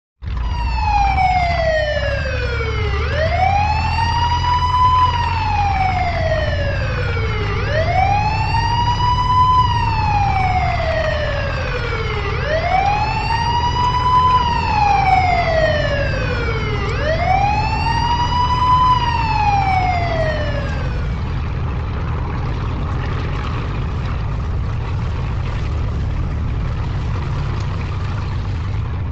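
Ambulance siren wailing in slow rise-and-fall cycles, each rising quickly and falling slowly over about four to five seconds, over a steady low engine rumble. The siren stops after four cycles, about two-thirds of the way through, leaving the engine running alone.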